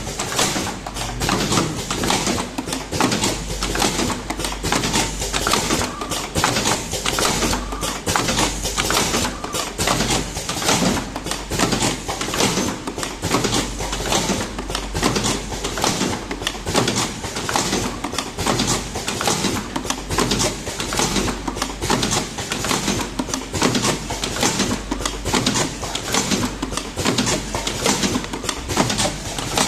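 Vertical automatic cartoning machine running, a continuous rapid clatter of mechanical and pneumatic strokes over a steady low hum.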